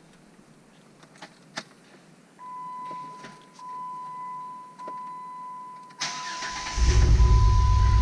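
A steady dashboard chime tone, repeated in runs about a second long, then the 2008 Jeep Wrangler's V6 is cranked by the starter about six seconds in and catches within a second, settling into a loud, pulsing idle. The engine is misfiring on cylinders 2 and 5, traced to a faulty engine computer driver for ignition coil 2.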